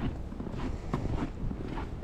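Footsteps on a snowy walkway at an even walking pace, a few steps a second, over a low rumble of wind on the microphone.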